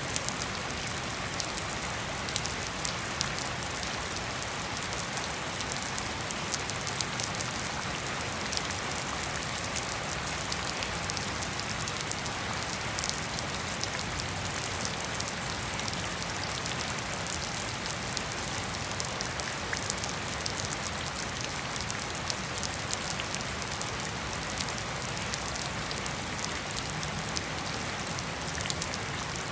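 Gentle, steady rain falling on a lawn and puddled pavement: an even hiss dotted with the sharp ticks of single drops.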